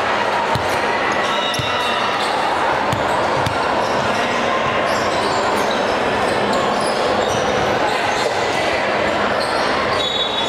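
Echoing sports-hall ambience: volleyballs thudding on hands and floor from several courts, over a steady hubbub of indistinct voices.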